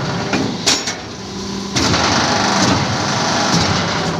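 Hydraulic hollow-block making machine running: a steady mechanical hum from its motor and pump, with a couple of sharp metallic knocks about half a second in. The noise drops for about a second, then comes back loud and rough.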